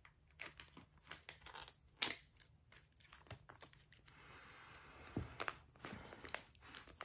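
A blunt-wrap pouch being torn open and handled: a run of faint crinkles and crackles, with a sharper crackle about two seconds in and a longer soft tearing rasp a little past halfway.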